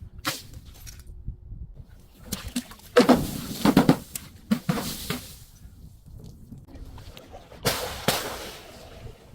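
Objects being crushed: a sharp crack near the start, then a long loud crunching and cracking about three seconds in, and more crunching around five seconds and again near eight seconds.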